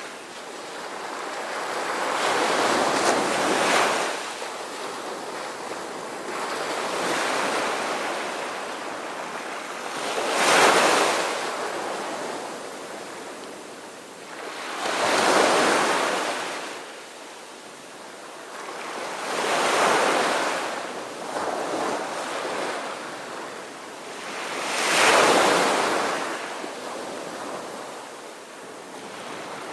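Sea waves breaking and washing in, a rushing swell about every four to five seconds.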